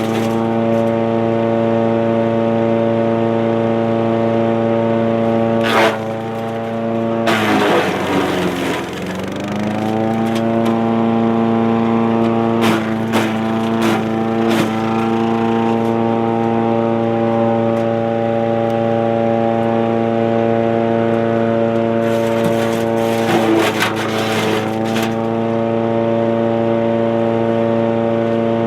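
Wood chipper's 7 HP 212cc gas engine running steadily at full speed, with short crackling, crunching bursts as branches are fed in and chipped. About eight seconds in, the engine pitch sags under the load and then recovers.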